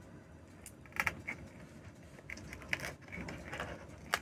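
Knife cutting through the crisp baked pastry crust of a vegetable tart, crunching in a series of short crackles, with a sharper crack near the end.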